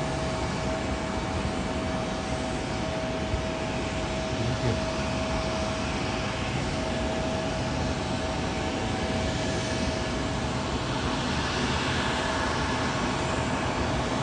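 Embraer E195 airliner's jet engines heard from afar as it lands and rolls out on the runway: a steady rushing noise that swells slightly near the end.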